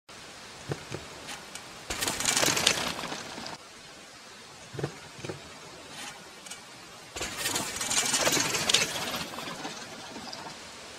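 Mountain bike riding a wooden drop onto a loose dirt landing: a few knocks, then two long rushes of tyre noise on dirt, the second starting sharply just after the jump as the bike lands.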